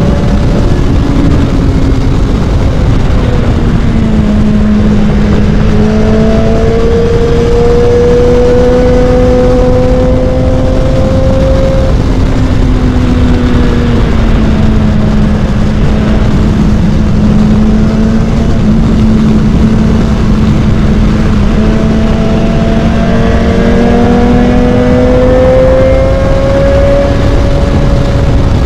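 BMW S1000XR's inline-four engine running at cruising speed, its pitch sagging and rising slowly as the throttle eases and opens again, over a heavy low rush of wind on the microphone.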